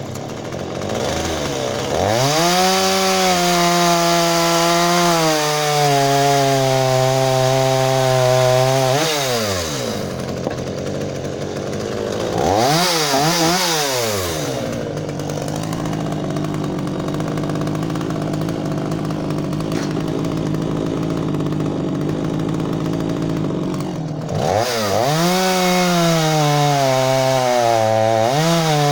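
36 cc two-stroke chainsaw (GTM Professional GTC36) revved up to full throttle three times. Each time the pitch sags and holds lower under load as it cuts wood, with a long steady cut in the middle.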